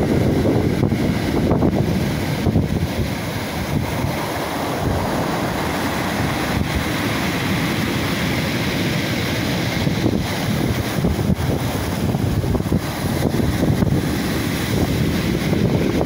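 Rough sea surf breaking and washing up a pebble shore in continuous swells, with wind buffeting the microphone.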